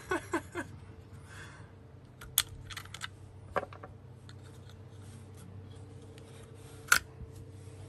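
SIG P320 pistol parts being handled and fitted: scattered light clicks and rattles of the metal fire control unit against the polymer grip module, with one sharper click about seven seconds in.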